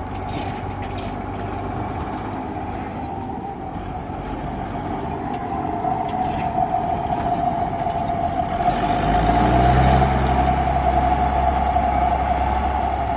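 Combine harvester running steadily, its machinery giving off a constant high whine over the engine, growing louder with a deeper rumble about nine seconds in.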